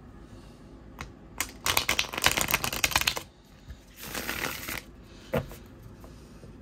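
A tarot deck being riffle shuffled: a fast run of card flicks as the two halves interleave, then a shorter, softer run about a second later, and a single tap just after.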